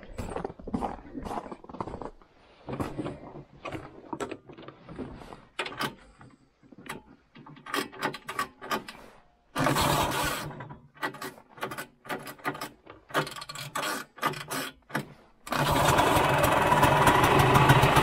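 Footsteps and handling clatter around a vintage Ski-Doo snowmobile, then its two-stroke engine starts near the end and keeps running steadily.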